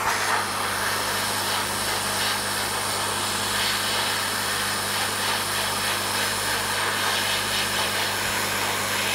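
Hot-air rework gun blowing steadily on a chassis ground solder joint, heating it to reflow the solder: an even rush of air with a steady low hum under it.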